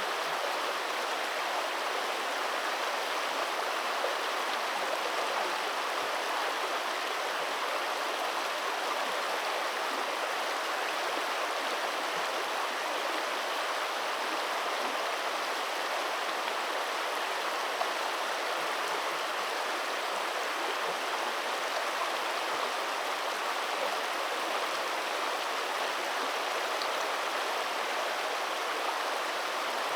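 Steady rush of flowing stream water, an even hiss with no breaks or changes.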